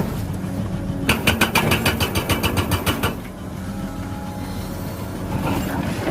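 Toy excavator with a rock-breaker attachment playing its engine sound, with a burst of rapid hammering clicks, about eight a second, starting about a second in and lasting about two seconds, then a steadier running sound.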